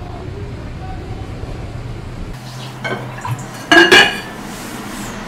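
Glass lid of a water-sealed glass pickle jar clinking against the jar's rim as it is lifted off: a light clink about three seconds in, then a louder ringing glass clink around four seconds.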